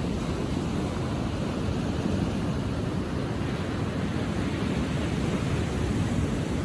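Ocean surf washing onto the beach, a steady rushing noise heavy in low rumble, with no single distinct wave crash.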